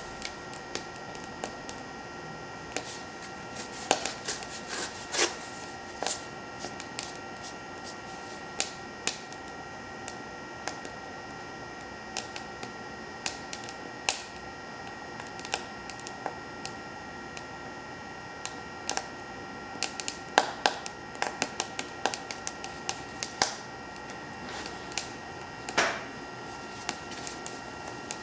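Wood burning in a BioLite CampStove, crackling and popping irregularly, over the steady whine of the stove's built-in fan blowing air into the fire.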